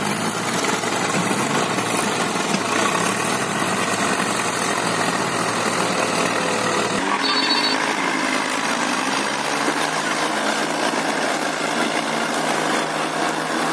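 Several tractor diesel engines (Swaraj 744 FE, Eicher 5660, Mahindra 575 DI) running together under load as they pull a stuck tractor and its loaded cane trolley. The engine sound changes abruptly about halfway through.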